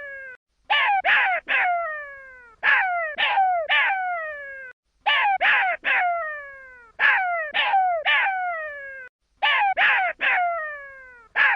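A jackal pup crying in bouts of three quick calls, about one bout every two seconds. Each call starts sharply and slides down in pitch into a drawn-out tail.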